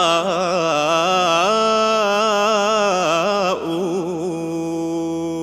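Male voice singing a Hijazi majass: a drawn-out melismatic vowel with quick wavering ornaments, settling about three and a half seconds in onto a long held note.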